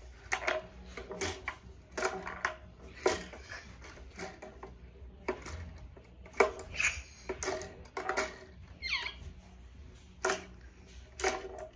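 Plastic clicks and knocks from a LEGO foosball table being played: the rods spinning and the ball rattling against the players and walls. The strikes come irregularly, sometimes several a second.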